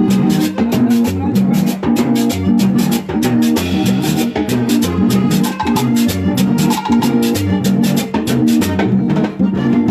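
Hohner button accordion playing a lively Latin dance tune over conga drums and other percussion keeping a steady, quick beat.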